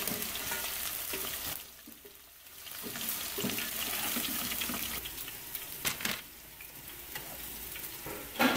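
Battered chicken pieces sizzling as they deep-fry in hot oil in a metal wok, with a few clinks and scrapes of a slotted spoon against the pan. The sizzle dips briefly about two seconds in, then returns.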